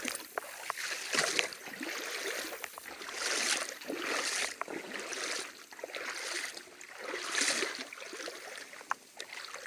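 Creek water sloshing and splashing as someone wades through it, in a series of uneven swells about a second apart.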